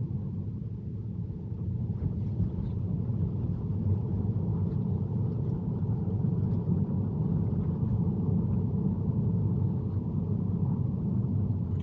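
Steady road and tyre rumble inside a Tesla's cabin, driving on a wet road in the rain, with a few faint ticks.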